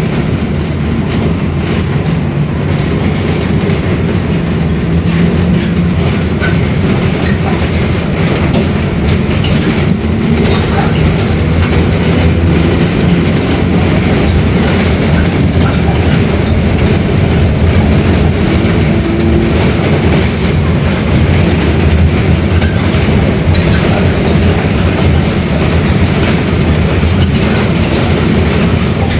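Mercedes-Benz OF-1721 Bluetec 5 bus running steadily, with rattles and the differential growling.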